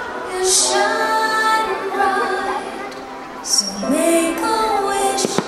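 Fireworks show soundtrack over loudspeakers: a woman singing sustained notes over orchestral accompaniment, with a sharp bang about five seconds in.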